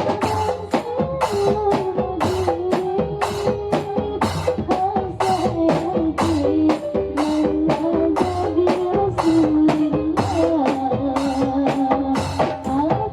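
Marawis ensemble playing: fast, dense hand-drum and percussion strokes in a steady rhythm under a sustained melody line that moves in steps.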